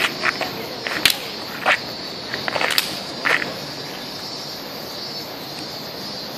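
Sneakers slapping and scuffing on stone paving as runners do warm-up drills, a handful of sharp footfalls in the first three and a half seconds, then quieter as they settle into stretches. A steady high hiss runs underneath.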